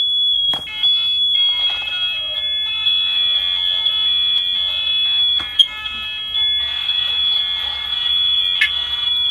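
Several interlinked smoke alarms sounding at once, their shrill tones at slightly different pitches layered into a steady chorus, with more alarms joining about half a second in. A false alarm that the owner puts down to two interconnect bridge units on low batteries.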